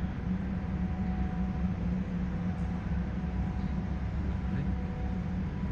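Steady low mechanical drone with a few faint steady tones above it, unchanging throughout, like a large engine or machine running at a constant speed.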